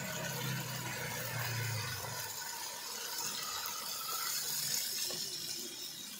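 Water poured from a glass into a pot of chickpea masala, a steady splashing pour into the hot liquid.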